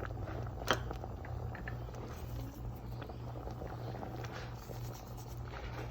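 A spoon clicking lightly against a cooking pot a few times while the rice and lentils are mixed, with one sharper click about a second in. A steady low hum runs underneath.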